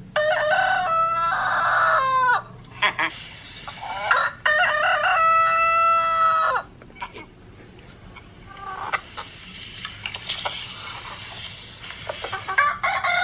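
Rooster crowing played through a phone's speaker: two long crows a couple of seconds apart, each ending in a falling note, then a third crow starting near the end.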